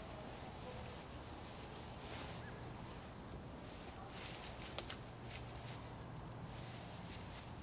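Dry pine needles and pine branches rustling as they are pushed and arranged by hand on a thatched bushcraft shelter. A sharp click comes a little before five seconds in, followed at once by a fainter one.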